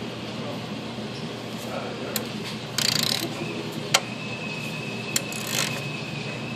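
A few sharp clicks and short metallic scrapes of a socket wrench being worked on a 17 mm oil drain plug that will not come loose, over a steady hum of shop ventilation.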